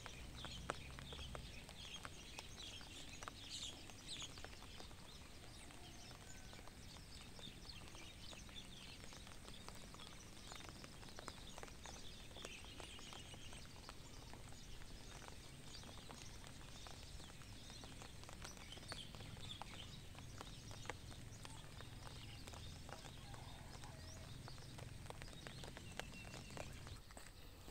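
Faint footsteps of someone walking on a concrete lane, a steady run of soft taps, with small birds chirping now and then.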